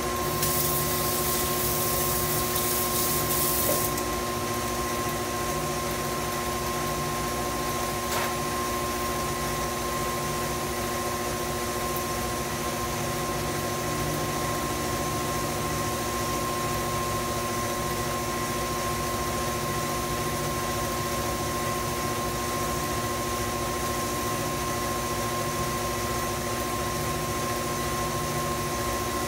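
Tilt-head stand mixer running steadily at speed, its motor giving a constant hum with a few steady tones while it beats cake batter. A hiss rides over it for the first few seconds.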